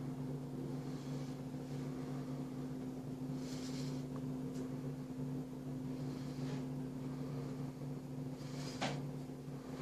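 A steady low electrical hum throughout, with a few faint rustles and one light click about nine seconds in.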